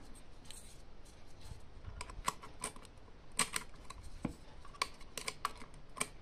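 Irregular light clicks and taps of small plastic parts and a plug being handled, starting about two seconds in: a device being plugged into the USB port of a home-built power supply to test it.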